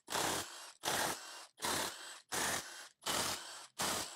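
Cordless power tool spinning out the main bearing cap bolts of a 2.0 TSI engine block in about six short bursts, roughly one every 0.7 seconds.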